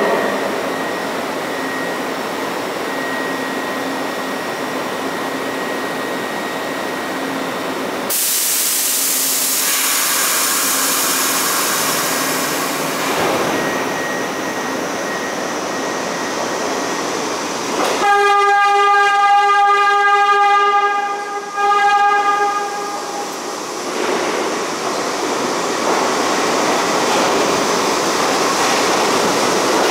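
R62A subway train running slowly along the platform. About eight seconds in, a sharp air hiss starts and lasts several seconds. About eighteen seconds in, a train horn sounds a steady note for about five seconds, with a short break near the end.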